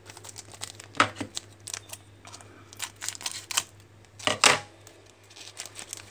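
A foil trading-card pack being opened and its cards handled: a series of short crinkles and rustles from the wrapper and the cards, the loudest about a second in and again around four and a half seconds in.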